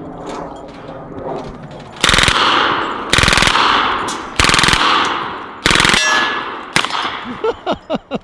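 Four short bursts of automatic gunfire, each about half a second of rapid shots, about a second apart, followed by a single shot. A few short, light squeaks come near the end.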